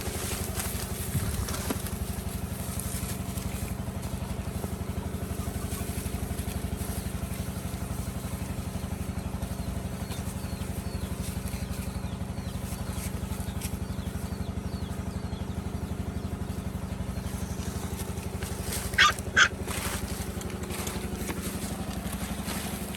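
Small motorcycle engine running steadily with an even low hum. Near the end come two short, high-pitched calls close together.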